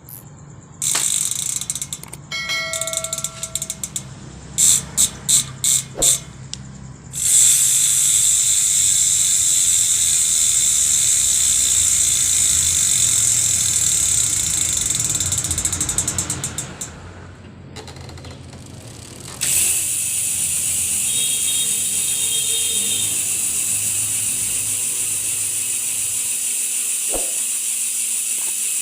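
Speedone Soldier bicycle hub freewheeling, its pawls ratcheting: first several short bursts of clicking, then a long, steady, high-pitched buzz as the hub spins freely. The buzz dies away and a second steady buzz starts about two-thirds of the way through.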